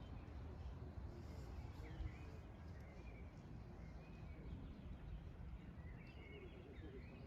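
Birds chirping faintly in short scattered notes over a steady low outdoor rumble.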